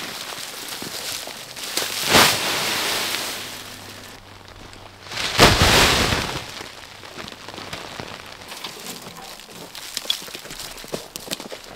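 Armfuls of dry leaf litter and twigs dropped onto a tarpaulin-covered shelter, landing in a pattering rush like rain. This happens twice, about two seconds in and again at about five and a half seconds, with lighter rustling and crackling of leaves in between.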